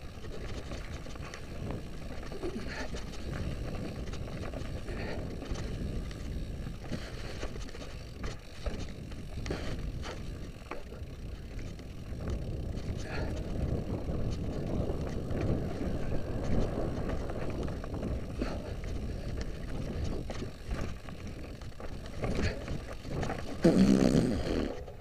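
Mountain bike rattling down a rough, rocky trail: tyres rumbling and crunching over stones and loose branches, with many short knocks and clatters from the bike. There is a louder jolt near the end.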